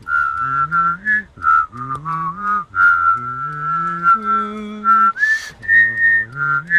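A man whistling a melody while humming a lower voice part at the same time, the two lines moving together as one piece. A short breath comes about five seconds in.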